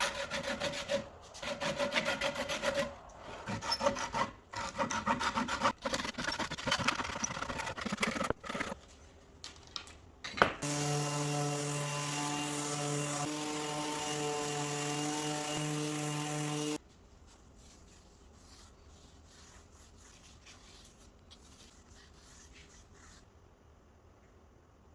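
Wood being worked by hand with quick, rough rubbing strokes, like sawing or rasping, for about eight seconds. Then there is a sharp knock, and a power tool's motor runs steadily for about six seconds before cutting off suddenly, leaving only a faint background.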